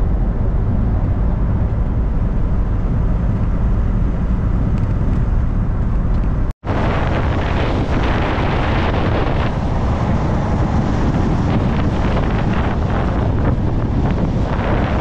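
Steady road and engine rumble of a 1998 Sprinter motorhome on the move. A brief drop-out comes about six and a half seconds in, and after it wind buffets the microphone over the driving noise.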